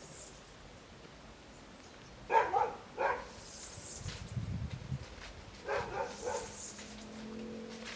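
A dog barking: two short barks, then two more about three seconds later.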